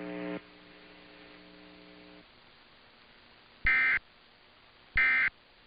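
Emergency Alert System digital data bursts (SAME end-of-message code): two short, identical buzzy squawks about 1.3 s apart, marking the end of the test message. Before them a low steady hum fades and stops about two seconds in.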